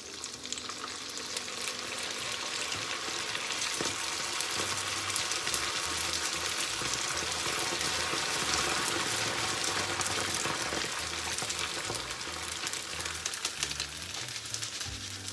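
Dried cooked rice deep-frying in hot vegetable oil in a paella pan, sizzling and crackling as it puffs up. The sizzle builds over the first few seconds and eases off near the end into separate crackles.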